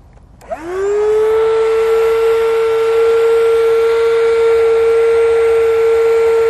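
Sea Eagle electric inflation pump switched on with a click about half a second in, its motor spinning up in a quick rising whine and then running at a steady pitch as it blows air through its hose into an inflatable catamaran pontoon.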